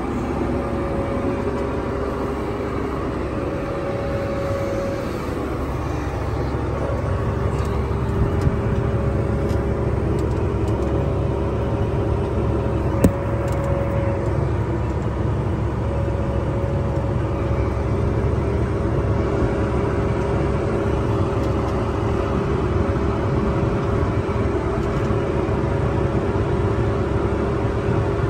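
Large farm tractor running steadily under load, a low engine rumble with a steady whine over it that drops out briefly a couple of times. A sharp click stands out about halfway through.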